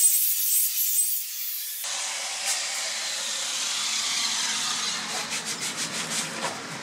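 Angle grinder with a grinding disc working along a steel butt weld, a high hissing grind that stops abruptly about two seconds in: the weld root being ground out from the back side before the back weld. Then steady background noise, with a quick run of light scraping strokes near the end.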